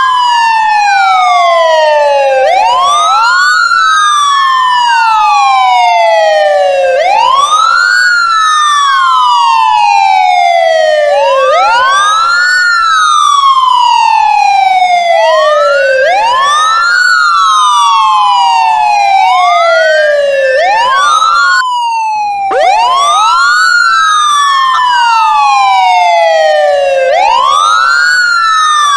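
Ambulance siren wailing: two overlapping tones, each sweeping quickly up and then slowly down, repeating about every four and a half seconds. The sound breaks off briefly about three quarters of the way through, then the wail starts over.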